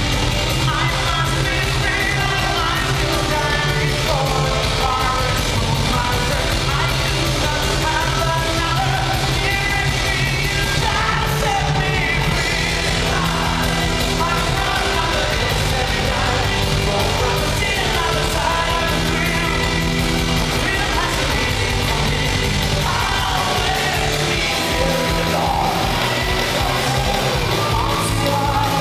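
Power metal band playing live at full volume: a male singer over distorted electric guitars, bass and drums. Fast, even kick-drum strokes come in a few seconds before the end.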